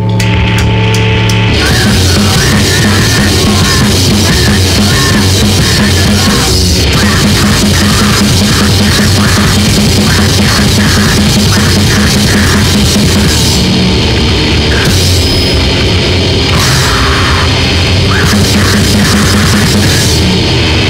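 Grindcore/powerviolence from a three-piece band: distorted guitar, bass and fast drums, loud and continuous, with a rough, roomy demo sound like a single-microphone, one-take recording. A held chord opens, then the full band kicks in about a second and a half in.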